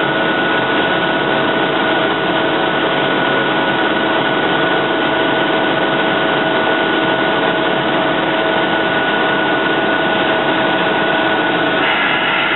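Steady whirring hum of old SEPTA electric multiple-unit commuter railcars standing close by, their onboard equipment running, with several steady whining tones over it.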